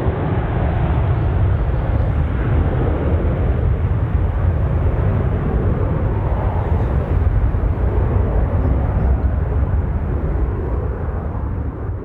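Jet engines of a departing Boeing 737-800 (CFM56-7B turbofans) at takeoff power, a steady deep rumble.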